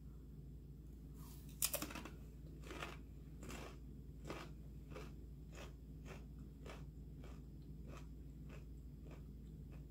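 Biting into a crunchy rolled corn tortilla chip (Takis Blue Heat), a sharp crunch about a second and a half in, then faint crunching chews at about one every 0.7 seconds, growing weaker.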